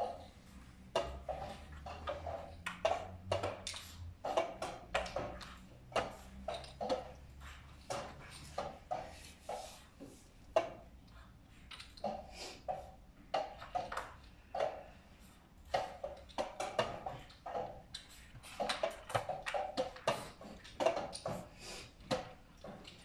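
Rapid, irregular clicks and knocks, several a second, from draughts pieces being set down on boards and game clocks being pressed in blitz games around a tournament hall.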